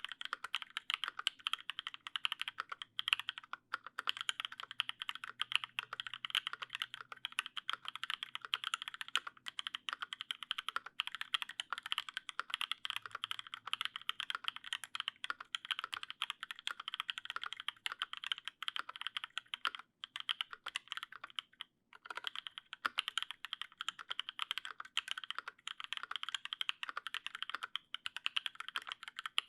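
Steady rapid typing on an LZ CLSm custom mechanical keyboard with lubed Paco switches, an aluminium plate and GMK keycaps: a dense run of key clacks. It pauses briefly about three and a half seconds in and again about two-thirds of the way through.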